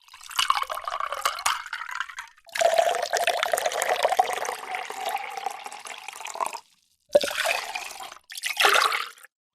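Water being poured into a container in four separate pours with short pauses between, the longest lasting about four seconds with a steady ringing note from the filling vessel.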